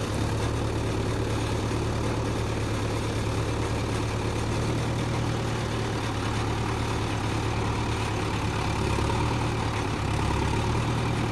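Heavy diesel engine idling steadily with a low, even drone.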